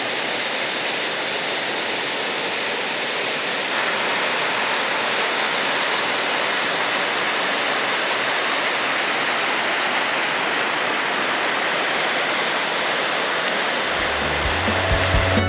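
Waterfall pouring steadily, a constant rush of falling water that turns slightly brighter about four seconds in. Music with a deep bass begins to fade in near the end.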